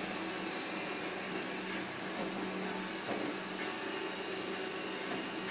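Xiaomi Mi robot vacuum running: a steady motor and suction hum with a constant low tone.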